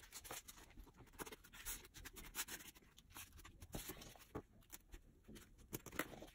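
Faint handling noise of an EPP foam model-airplane fuselage being picked up and turned over: scattered light scratchy rustles and small clicks and taps.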